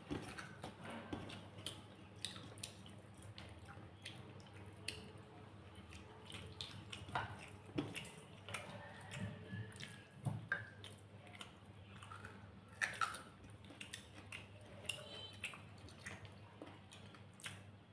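Close-up eating sounds: soft chewing with many short wet clicks and smacks from a mouth eating rice and curry, scattered unevenly, over a faint steady low hum.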